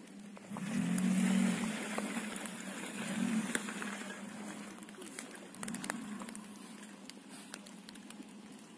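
Off-road SUV engine pulling through deep mud, its revs rising and falling in about three surges.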